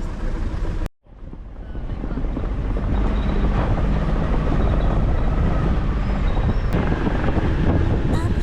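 Nissan Navara D40 4x4 driving off-road, a steady engine and driving rumble with some wind on the microphone. The sound cuts out abruptly about a second in and fades back up to the same steady rumble.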